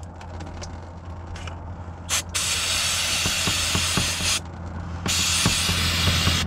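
Aerosol can of brake cleaner spraying in hissing bursts: a brief puff about two seconds in, a two-second spray, then another spray from about five seconds in.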